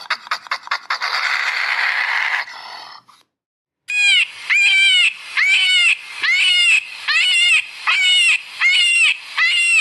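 A rasping hiss with clicks at first. Then, after a brief gap, an animal calls over and over: about eleven loud, high, arching notes, roughly two a second.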